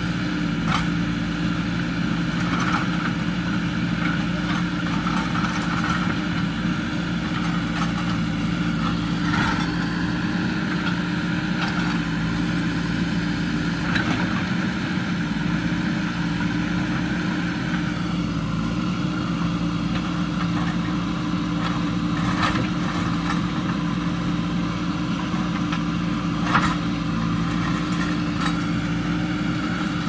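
JCB 3DX backhoe loader's diesel engine running steadily as the backhoe digs, with a handful of short knocks from the bucket striking broken concrete, the sharpest about three-quarters of the way through.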